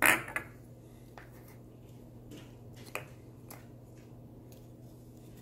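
Small plastic toy terrarium parts handled and fitted into a clear plastic dome: a sharp clack at the start, a smaller click about three seconds in and light ticks in between, over a faint steady low hum.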